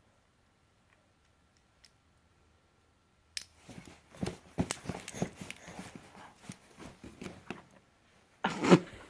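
A baby moving about in a playpen and handling a toy: irregular rustling and small knocks begin after about three seconds of near silence, with a louder burst of rustling near the end.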